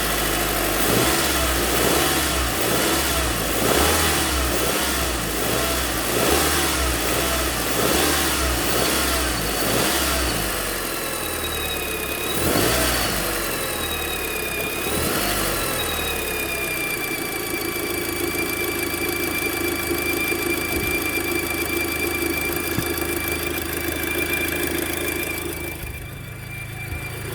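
Audi Mk2 TT engine running with its accessory V-belt removed, with a strange noise from the belt drive area. The engine note rises and falls over and over, then settles into a steady high-pitched whine from a little past halfway. The noise persists even with the belt off and with the alternator pulley, tensioner pulley and air-con clutch pulley already renewed.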